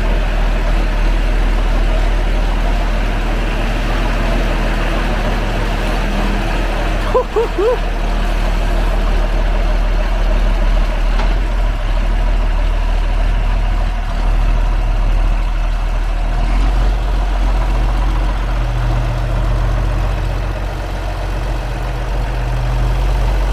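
John Deere 4440's six-cylinder turbo diesel running steadily as the tractor is driven, a low drone whose pitch steps up slightly in the second half. There is a brief high chirp about seven seconds in.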